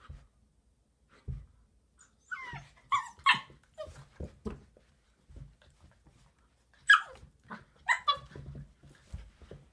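Two dogs play-fighting: a golden retriever and a puppy give short, high yips and play-barks in two flurries, about two seconds in and again about seven seconds in, with soft thuds of paws and bodies scuffling on a rug.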